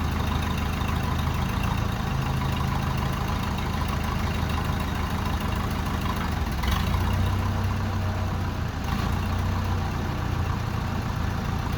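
1969 backhoe's engine running steadily at low speed, picking up briefly about seven seconds in, then settling back.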